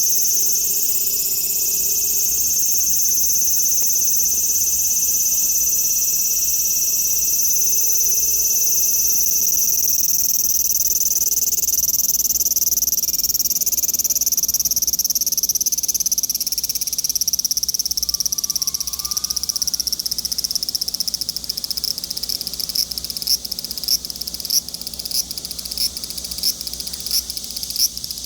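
Large brown cicada (Graptopsaltria nigrofuscata) singing: a loud, steady, high sizzling buzz. From about three quarters of the way through, the buzz breaks into regular sharp pulses, a little over one a second.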